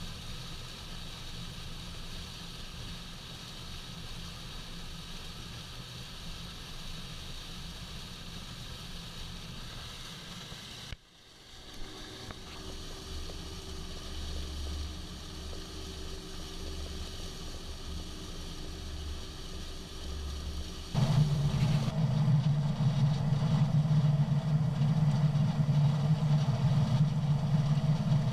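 Farm machinery engines running steadily across three separate clips, each cut off abruptly. The last clip, starting about two-thirds in, is the loudest, with a strong low engine hum.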